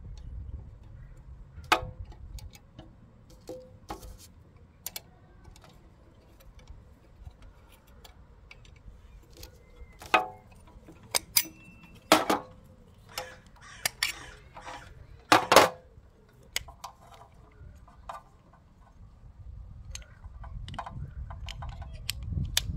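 Irregular clicks, taps and knocks of a small Allen key and the plastic hood and body of a twin-lens reversing camera being handled and taken apart, with a few sharper knocks near the middle.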